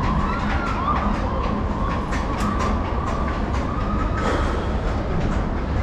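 Chairlift running: a steady low rumble with scattered clicks and a wavering, squealing whine.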